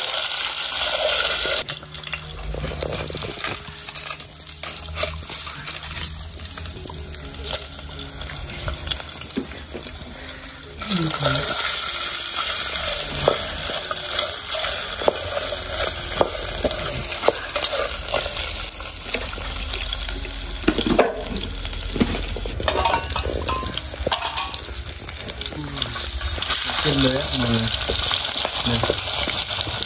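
Scorpions sizzling as they fry in an aluminium pot, stirred with wooden chopsticks that tap and scrape against the metal. The sizzle drops back about two seconds in and comes back louder about eleven seconds in.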